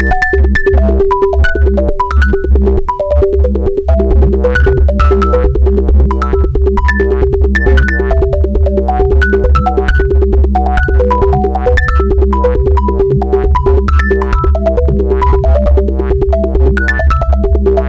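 Korg Volca synthesizer playing a looping sequenced pattern: quick, short notes hopping up and down in pitch over a steady deep bass, with drum-machine ticks keeping a regular beat.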